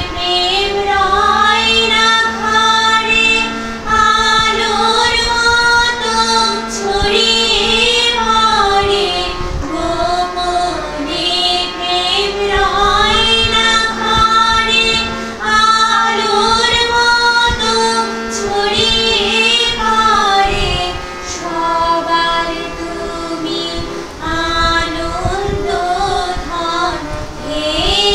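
Background music: a woman singing a slow, gliding melody over a steady low drone.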